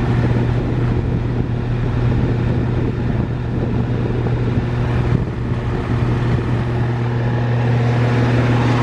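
Rheem Classic central air conditioner condenser running: a steady hum from its Copeland scroll compressor under the rush of the condenser fan. The ProTech fan motor is on its last legs and the unit is a little rattly.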